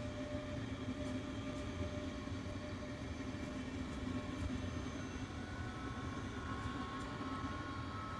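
DB class 425 S-Bahn electric multiple unit moving slowly through the station: a steady low rumble and electric hum. From about halfway, a faint higher whine rises slightly in pitch.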